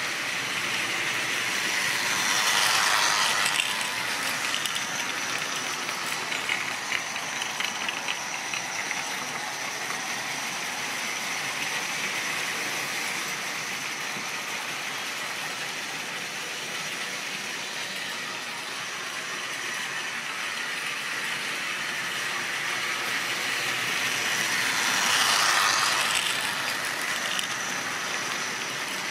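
Model railway goods trains running on the layout's track: a steady rattle of small wagon wheels and running gear on the rails. It swells louder about three seconds in and again near the end.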